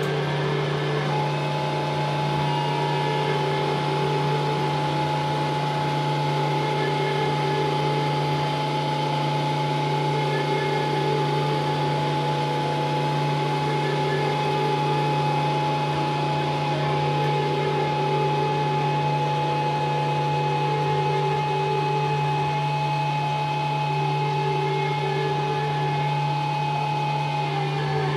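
Experimental drone music: dense, unchanging layers of sustained tones over a constant low hum. A long held high tone runs through most of it, and the pitches shift right at the end.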